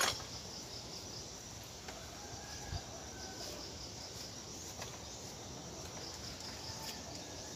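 Faint, steady high-pitched chirring of insects, with a soft knock about three seconds in.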